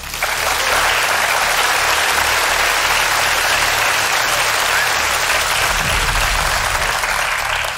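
Studio audience applauding, a dense steady clapping that breaks out all at once and eases off near the end.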